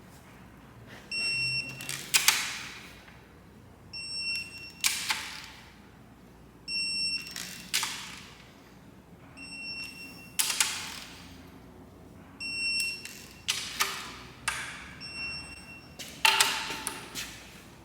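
Torque wrench sounding six short high beeps as the long cylinder-head cap screws of a Cummins 6BT diesel are tightened one after another to 89. Each beep is followed by a brief scraping creak of the wrench and the screw turning under load.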